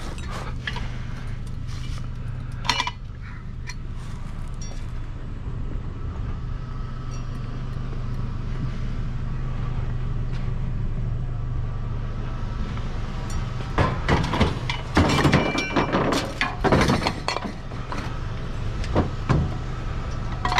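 A vehicle engine idling steadily. About two-thirds of the way through, a run of clanks and knocks begins as objects are handled and knocked about.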